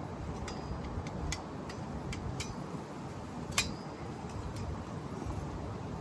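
Light clicks and taps from handling animatronic prop parts, with one sharper click about three and a half seconds in, over a steady low background rumble.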